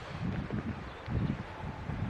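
Wind buffeting the microphone in uneven low rumbling puffs, with faint outdoor rustling.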